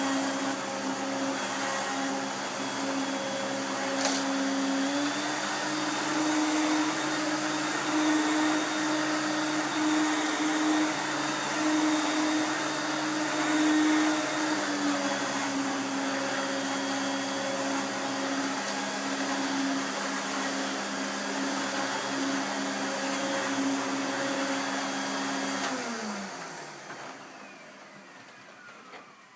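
Electrolux upright vacuum cleaner motor running steadily. Its pitch steps up about five seconds in and drops back about ten seconds later. Near the end it is switched off and winds down with a falling whine.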